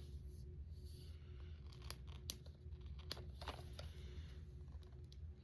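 Faint rustling and scattered sharp clicks of toy packaging being handled and opened, over a steady low hum.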